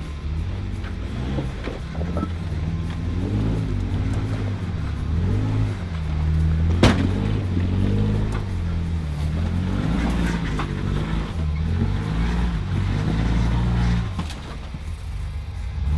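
Off-road Jeep engine revving up and down repeatedly while climbing over terrain, with one sharp knock about seven seconds in.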